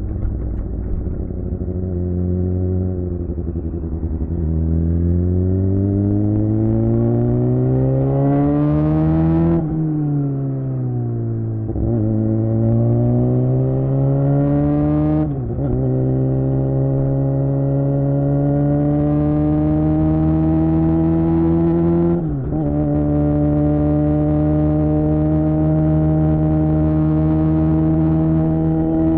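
Suzuki GSX-R600's inline-four engine through a Yoshimura R11 exhaust, riding and accelerating. The revs climb and fall away once, then climb again through two quick upshifts before settling to a steady cruise.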